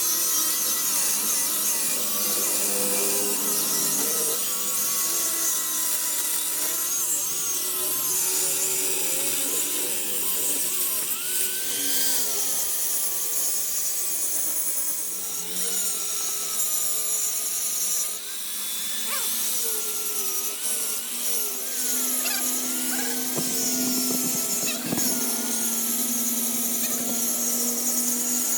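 Power tool working on a steel wrench: a steady, hissing grind with a whine that wavers up and down in pitch as the load on the tool changes.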